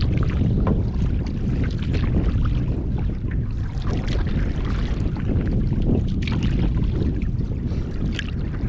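Wind rumbling on the microphone, with small waves slapping and splashing irregularly against a canoe on choppy lake water.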